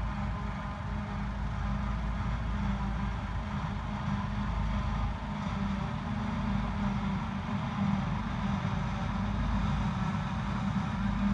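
Self-propelled forage harvester and the tractor alongside it running steadily at work while the harvester lifts a grass swath and blows chopped silage into the trailer. It makes a steady engine drone with a constant low hum.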